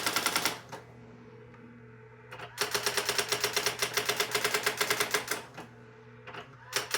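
Brother GX-6750 electronic daisywheel typewriter striking characters in rapid, even runs of about ten strikes a second, stopping briefly twice.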